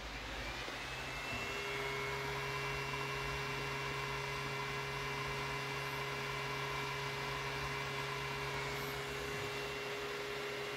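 Electric motor driven by an INVT GD20 frequency inverter, starting up with a whine that rises in pitch over the first second and a half, then running steadily at 40 Hz.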